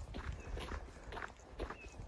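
Footsteps walking on a snow-covered road, about two steps a second.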